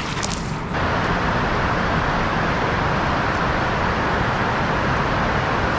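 Steady loud rushing of a boat under way, motor noise mixed with wind and water, setting in about a second in after a few light clicks.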